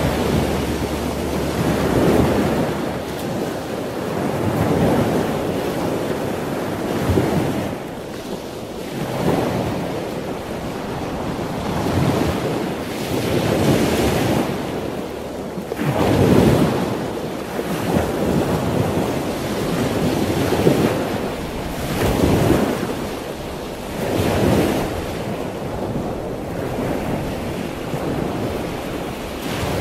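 Choppy water rushing and splashing with strong wind buffeting the microphone, swelling and easing every few seconds, from a small sailboat driving through rough water.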